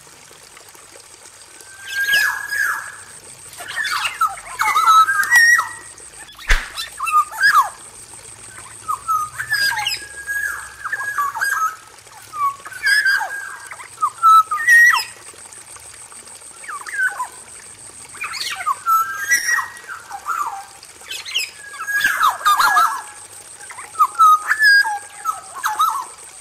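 Male black-naped oriole singing: short whistled phrases of sliding notes, repeated every second or two with brief pauses between.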